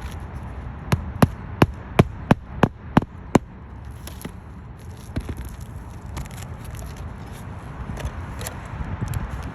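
Eight quick, sharp knocks about three a second, then fainter scattered knocks and scraping: roofing nails being driven during a roof repair.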